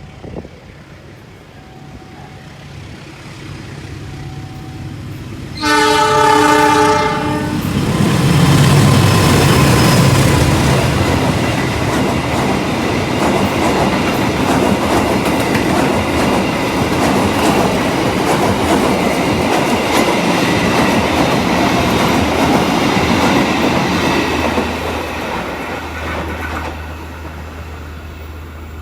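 Passenger train passing through a station at speed without stopping. It approaches with a growing rumble and sounds its horn, a chord of several tones lasting about two seconds. Then the carriages go past with a loud, steady rush of wheels clacking over the rails, which fades near the end.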